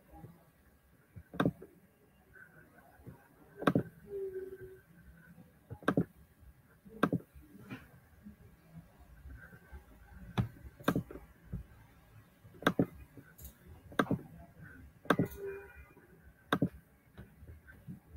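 Computer mouse clicks, sharp and single, one every second or two at uneven spacing, as the computer is worked to start a screen share.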